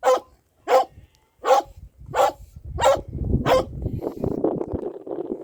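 A dog barking six times at an even pace, about one bark every 0.7 seconds. A rough noise without any clear pitch rises under the last barks and carries on after them.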